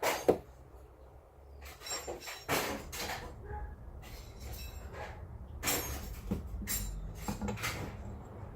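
Steel steering-gearbox parts and hand tools clinking and knocking irregularly against each other and the bench, some strikes ringing briefly, during disassembly.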